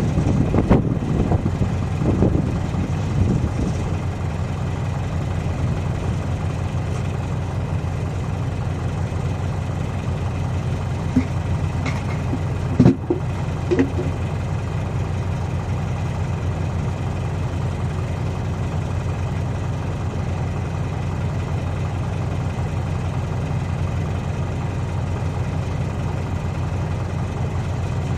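A diesel engine idling steadily, with several short knocks in the first few seconds and two or three sharper knocks about 12 to 14 seconds in.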